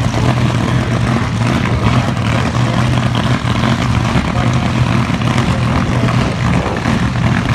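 Drag cars' engines idling while staged at the start line, a loud, steady low note without revving.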